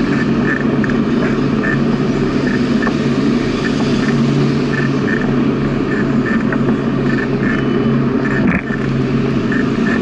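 Steady riding noise of a bicycle on a smooth paved path at about 15 km/h: wind over the camera microphone and tyre rolling noise, with a brief drop about eight and a half seconds in.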